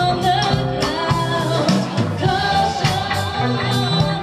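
Live rock band playing: a singer over electric guitar, bass guitar and drums, with the drums striking a steady beat.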